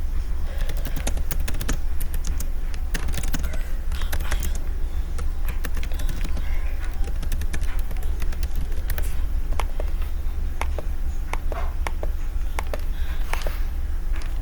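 Typing on a laptop keyboard: irregular key clicks, scattered and at times in quick runs, over a steady low hum.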